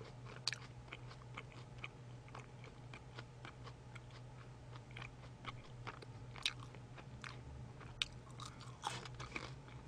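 A person chewing crispy French fries close to a microphone: soft crunches and mouth clicks throughout, with a few sharper crunches about half a second in, at six and a half and eight seconds, and a small cluster near the end.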